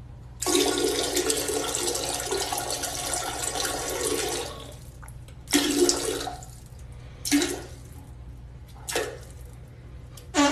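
A person slurping liquid loudly from a bowl: one long slurp of about four seconds, then several short slurps.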